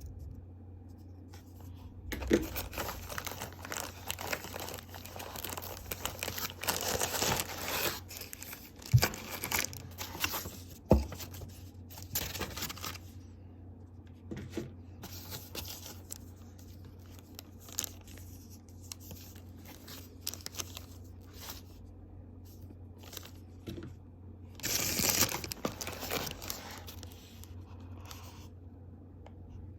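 Unboxing packaging being handled: rustling, crinkling and tearing in long bursts, with a few sharp knocks and scattered clicks between them, over a steady low hum.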